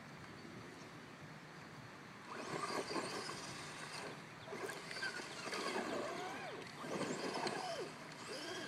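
Electric motor of an ECX Circuit RC truck revving up and down in repeated bursts from about two seconds in, its wheels spinning as the truck sits high-centred on foot-deep ruts.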